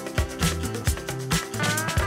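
Outro music with a steady drum beat, bass and a melody line that bends up in pitch near the end.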